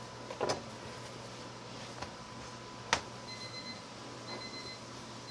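Chef's knife cutting through stacked fresh pasta sheets on a wooden board: a few sudden knocks of the blade and dough on the board, the sharpest about three seconds in, over a faint steady hum.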